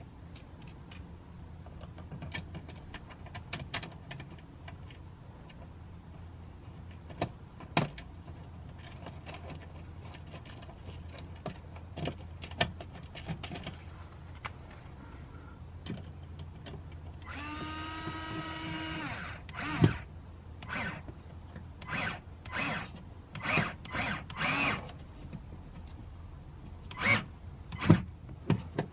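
Cordless drill/driver running steadily for about two seconds, then pulsed in a string of short bursts while driving a screw through a plastic speaker spacer ring into a car door's inner panel. The screw is tightened in short bursts, feeling for a spring clip to compress almost flat. Before that come light clicks of small parts being handled.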